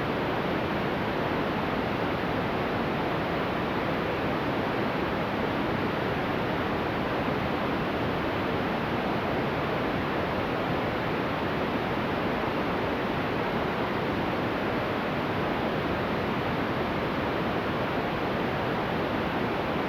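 Steady, unbroken static hiss filling the audio of an Emergency Alert System severe thunderstorm warning: the relayed voice message has failed and dropped out to noise in place of the spoken warning.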